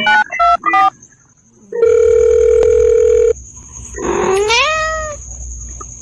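Telephone keypad beeps, a few short presses in the first second, then one steady phone tone lasting about a second and a half. Then a cat gives one long meow that rises in pitch and then holds.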